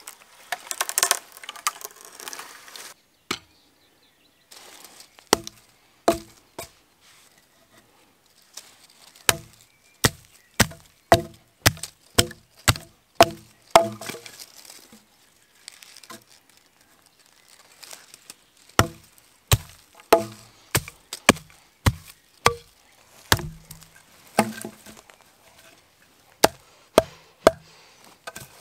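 Silky Nata machete chopping into green sapling wood to point stakes: sharp chops in runs of several, about two a second, with short pauses between the runs. A brief stretch of rasping sawing comes first, before the chopping starts.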